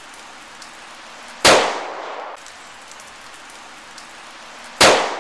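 Two pistol shots from a Walther P22 firing .22 LR, about three and a half seconds apart, the first about a second and a half in and the second near the end, each ringing out briefly.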